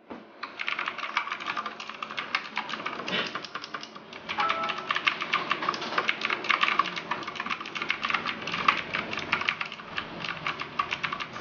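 Fast typing on an E-element Z77 TKL mechanical keyboard with clicky blue switches: a dense, continuous clatter of keystrokes.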